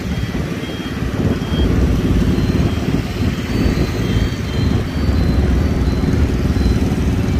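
Street traffic noise, mostly motorbike engines running past on a busy city road, with a heavy low rumble throughout.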